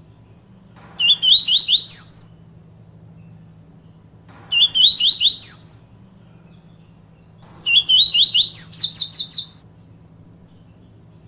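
Papa-capim seedeater singing its 'tui tui viviti' song: three phrases a few seconds apart, each a run of quick rising notes that ends in a faster, higher trill. The last phrase is the longest. A faint steady hum lies under the song.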